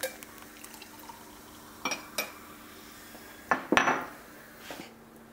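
Glass clinks and knocks as a mini bottle of rosé champagne is opened and handled beside champagne flutes, with a short splash of pouring a little after halfway. A faint steady hum sits underneath.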